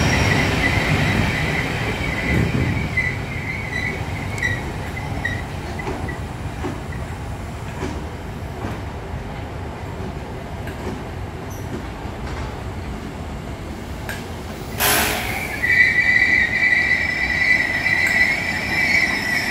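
A train of Network Rail yellow coaches with a Class 73 locomotive passing through a station, wheels rumbling and squealing on the rails. A short burst of noise comes about fifteen seconds in, after which the wheel squeal is louder and steady.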